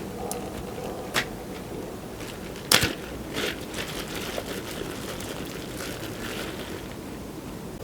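A camping gas burner runs with a steady hiss under a pot of cooking rice. Several sharp clicks and clinks come over it; the loudest is near three seconds in.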